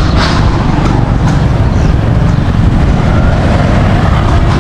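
Loud, steady low rumble of street traffic.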